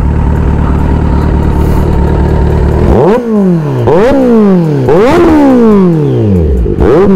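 Loud motorcycle engine idling steadily, then from about three seconds in revved in quick throttle blips, roughly one a second, each rising sharply and falling back.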